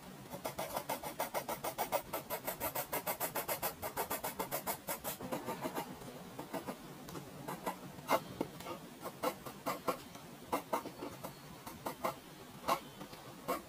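Pencil graphite scratching on drawing paper: rapid, even back-and-forth shading strokes for about the first six seconds, then slower, separate strokes.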